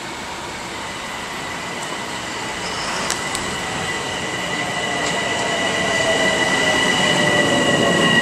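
Bombardier M7A electric multiple-unit train pulling into the station and slowing, growing steadily louder as it comes alongside. A steady high whine runs throughout, with lower motor tones sliding down in pitch in the second half as it brakes, and a couple of faint clicks about three seconds in.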